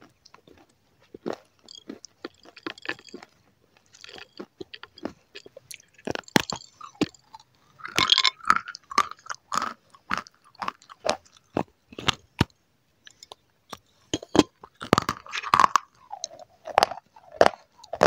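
Close-miked biting and chewing of a crisp, crunchy snack: sharp cracks and crunching chews in quick clusters, loudest about eight seconds and fifteen seconds in.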